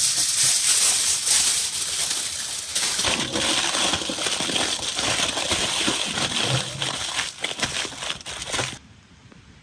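Aluminium foil crinkling and crackling as it is scrunched and crimped by hand around a food parcel, stopping suddenly about a second before the end.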